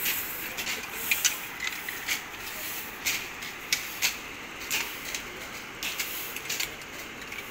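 Irregular swishing and scraping strokes, about two a second, of hand tools working the ground: sickles cutting weeds and a long grass broom sweeping stone steps.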